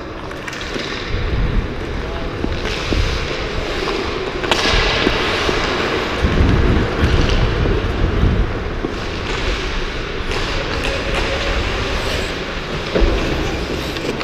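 Hockey skate blades scraping and carving across rink ice as the camera wearer skates, under a low rumble of air rushing over the camera's microphone, with a few sharp knocks.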